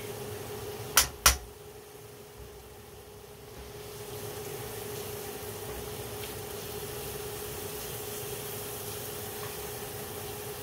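A metal spoon knocked twice on the rim of an aluminium frying pan about a second in, over a steady hum and the faint hiss of curry sauce simmering in the pan.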